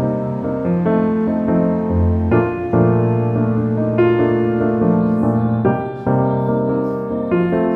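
Background piano music: a gentle melody over bass notes.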